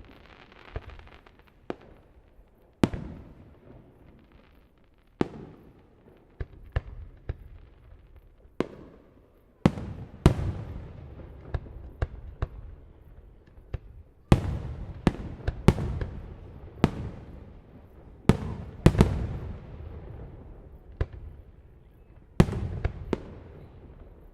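Professional fireworks display: aerial shells bursting one after another at irregular intervals, the bigger bangs followed by a long rolling echo that fades over a second or two. The bursts come thicker in the second half.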